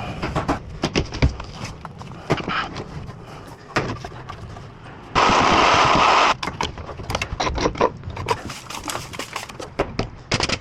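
Construction work on a wall framing: a run of sharp knocks and bangs, with one loud rushing burst about a second long a little past the middle.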